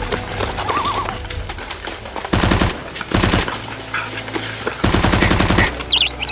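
Automatic gunfire in three rapid bursts, two short ones about half a second apart and then a longer burst of about a second.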